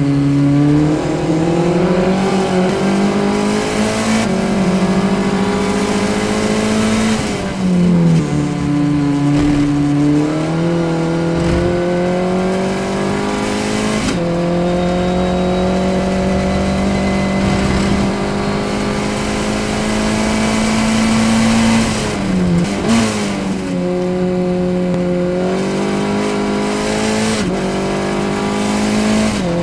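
Formula Ford single-seater's four-cylinder engine at race pace, heard from the car itself. The revs climb under full throttle and drop at each gear change. Under braking near the start, about eight seconds in and again near 23 seconds, the pitch falls sharply with quick throttle blips on the downshifts, then climbs again. The engine holds high revs steadily for several seconds down a straight.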